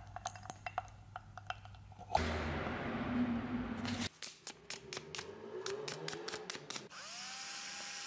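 Small workshop sounds: a brush clinking against the rim of a glass jar, sandpaper crinkling in the hands, and a cordless drill spinning up near the end with a rising whine and a steady whir.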